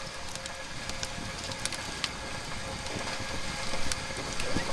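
Wood campfire crackling under a kettle on a grill grate, with scattered sharp pops and snaps at irregular intervals.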